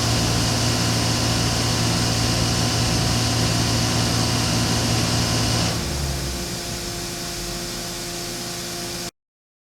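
Mazak Nexus 510C CNC vertical machining center running with a steady mechanical hum and hiss. A little over halfway through, the hiss and the low hum drop away and the machine runs on more quietly. The sound cuts off abruptly near the end.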